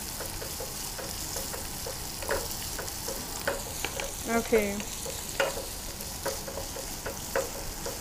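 Sliced onions, capsicum and garlic sizzling in hot oil in a frying pan, with a steady hiss and irregular clicks and scrapes as a metal spatula stirs them.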